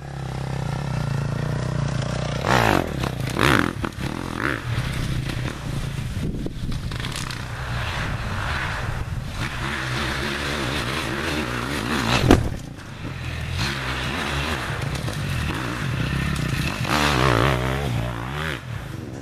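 Dirt bike engine running on a woodland trail, the revs rising and falling as the rider works the throttle, with scraping and clattering from the ride. There is a sharp thump about two-thirds of the way through.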